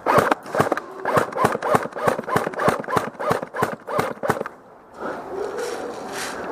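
Airsoft gun firing a rapid string of sharp shots, about four to five a second, that stops about four and a half seconds in.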